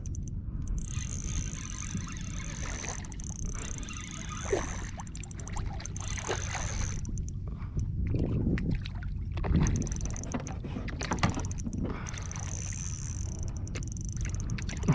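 Water splashing and lapping around a kayak, over a steady low wind rumble on the microphone, with scattered short knocks and clicks from handling.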